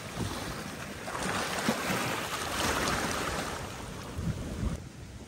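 Small waves washing onto a sandy lagoon shore, with wind on the microphone; the wash swells about a second in and eases off near the end.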